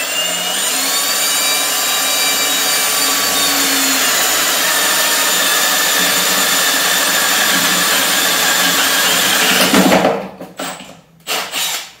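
Cordless drill with a Forstner-style bit boring a hole just over an inch wide through soft plastic, with a steady motor whine and cutting noise for about ten seconds. It stops suddenly, followed by a few short knocks.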